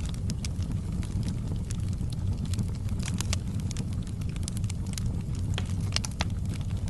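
Wood fire in a fireplace crackling, with irregular sharp pops and snaps over a steady low rumble of the burning fire.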